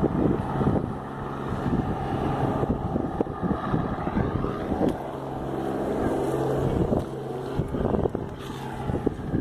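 Helicopter flying overhead: a steady rotor thrum with a low engine drone.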